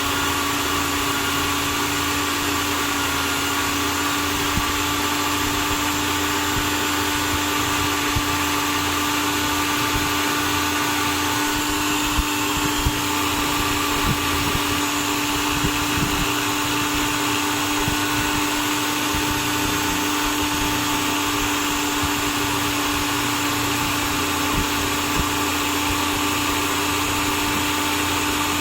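Electric drill motor running at a steady speed with a constant whine, with a few light clicks scattered through.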